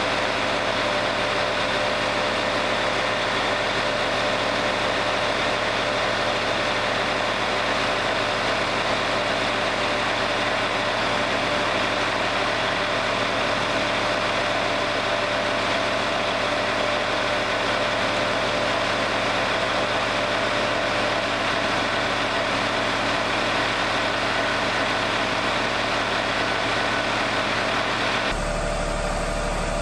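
Wood-Mizer LT40 Wide band sawmill's engine running steadily between cuts, with no sawing load on it. Near the end the sound becomes lower and fuller.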